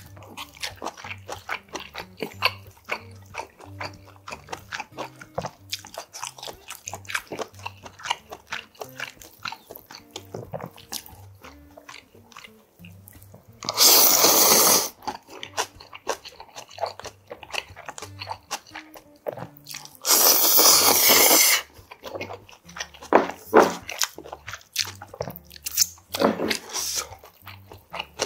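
Close-miked crunchy chewing of spicy whelk salad with raw vegetables, with two loud slurps of thin wheat noodles about 14 s and 20 s in and shorter slurps near the end. Quiet background music runs underneath.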